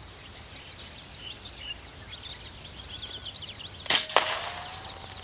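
Regulated Artemis M22 air rifle firing a 23-grain Javelin slug: one sharp shot about four seconds in, followed a moment later by a second, quieter crack. Faint high chirps throughout.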